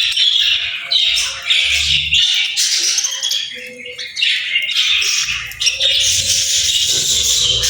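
Pet budgerigars chattering and squawking in a dense, continuous stream of chirps, with low thumps in the last few seconds.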